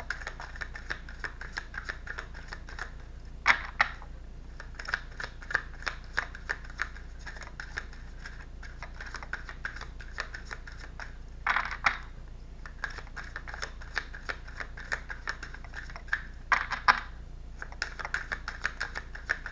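Tarot cards being shuffled by hand: a long run of quick soft card clicks, broken by three louder swishes spread through it.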